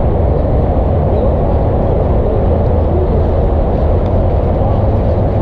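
Steady low rumbling noise with a low hum beneath it, loud and unchanging.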